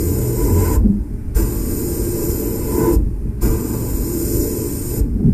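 Abrasive blast gun hissing inside a blast cabinet, stripping old paint off a toy van's metal body, over a constant low rumble. The hiss stops for a moment about every two seconds and then resumes.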